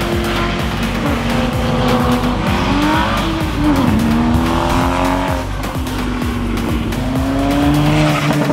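Sports cars running at speed on a race track, engines at high revs, their pitch dipping and climbing again about halfway through.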